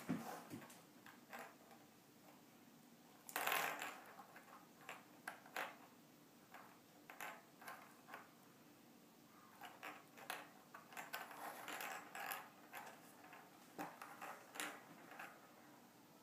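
Small shiny ornament balls clicking and clinking against each other and the tabletop as they are picked up and set down, a scatter of light clicks with a louder clatter about three and a half seconds in and a busier stretch around ten to twelve seconds.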